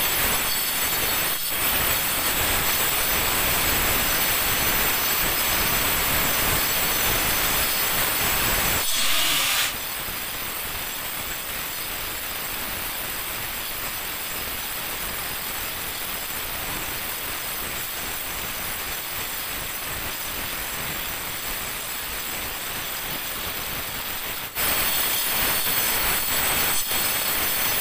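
Electric angle grinder grinding along the edge of a granite countertop slab to round it off, a steady grinding noise over the motor's high whine. It drops in level about ten seconds in and comes back up a few seconds before the end.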